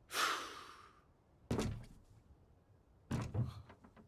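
A breathy rush of air, then two heavy thuds about a second and a half apart, each with a short ringing tail.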